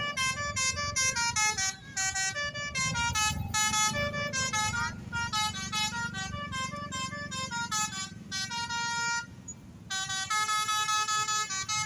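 Bus telolet basuri musical horn playing a quick tune of short, stepped notes, with one longer held note about three quarters of the way in and a short break before the notes resume. A low engine rumble runs underneath.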